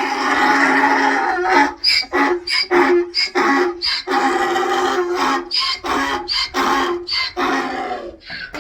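Donkey braying: one long drawn-out call, then a rapid run of harsh hee-haw pulses that tapers off near the end. The bray is that of an excited donkey greeting a familiar person.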